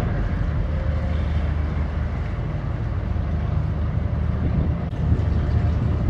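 Low, steady rumble of a small harbour tug's engine idling, with some wind on the microphone.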